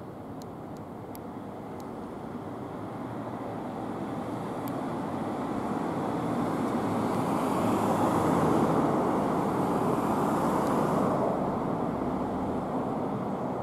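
Road traffic noise: a steady rumble and tyre hiss that swells slowly as a vehicle passes close by, peaking about eight to ten seconds in, then easing off.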